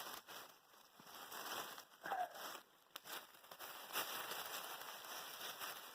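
Dry leaf mulch and soil rustling and crackling as a potato bed is dug through, with scattered clicks.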